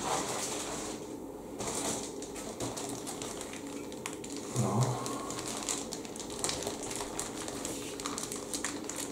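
Clear plastic bags around model-kit sprues crinkling and crackling as they are handled, a steady run of small clicks. A brief low hum of a voice about halfway through.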